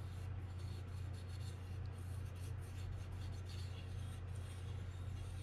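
Faint scratchy rubbing as grease is worked into a fishing reel part by hand, over a steady low hum.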